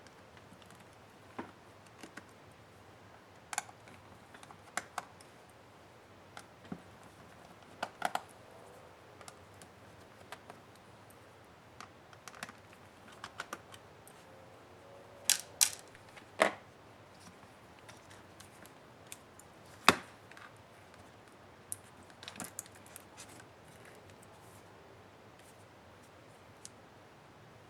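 Scattered sharp clicks and taps, at irregular intervals, of tools and laptop case parts being handled during disassembly. A tight cluster of louder clicks comes about halfway through, and a single loud one follows a few seconds later.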